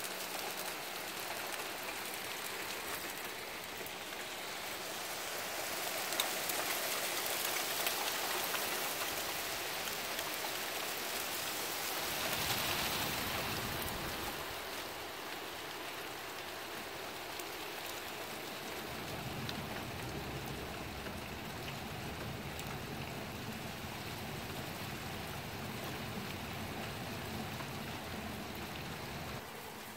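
Hail falling and pattering down in a dense, steady hiss. It grows heavier about six seconds in, peaks a few seconds later, then eases off.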